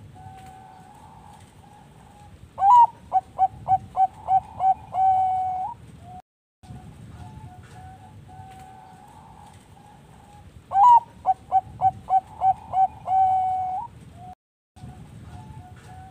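Zebra dove (Thai-bred perkutut bangkok) singing its cooing song twice. Each phrase is a loud opening note, then a quick run of about seven short coos, then one long held coo, with fainter cooing between the phrases.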